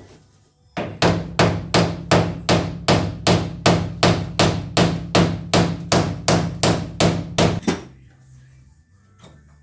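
A hammer striking metal in a fast, even rhythm, about three blows a second, starting about a second in and stopping after some twenty blows.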